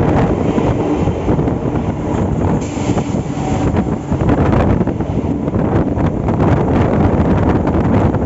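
Steady rumble of a MEMU train's coaches running on the rails, mixed with wind buffeting the microphone held at the open window of the moving train. A brief brighter rush of wind comes about three seconds in.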